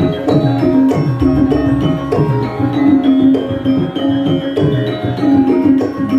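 Live Javanese gamelan music: bronze metallophones and gongs ring in a steady, even rhythm over hand-drum strokes.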